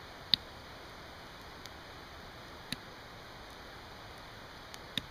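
A few sharp wooden clicks as fresh hazel sticks are handled and pushed into the leaf-littered ground, the loudest about a third of a second in, another near the middle and two more near the end, over a faint steady hiss.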